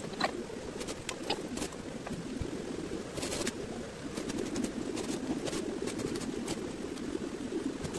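Sewing-work sounds at a sewing machine: scattered sharp clicks and snips from scissors and handled fabric over a steady low hum.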